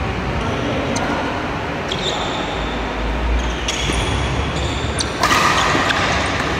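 A badminton doubles rally: sharp racket strikes on the shuttlecock every second or so, with brief high squeaks from shoes on the court floor. There is a steady hiss of background noise, which grows louder about five seconds in.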